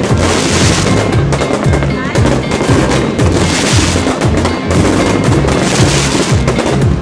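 Music with a prominent bass line, mixed with the bangs and crackle of an aerial fireworks display.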